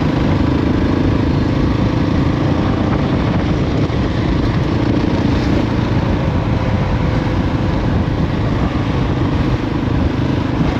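Husqvarna 701's single-cylinder engine running at a steady cruising speed while riding, under an even rush of wind noise.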